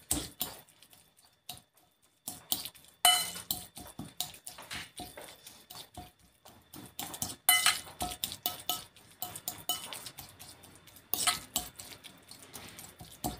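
Cutlery scraping and clinking against a ceramic bowl as a block of tofu is mashed to crumbs, in irregular bursts of taps and scrapes with short pauses.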